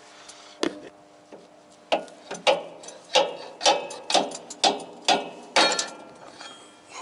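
Sharp, ringing metal knocks on a tower crane's disc brake caliper: one, then about nine more roughly two a second, starting about two seconds in. The upper caliper is jammed while the lower one still moves.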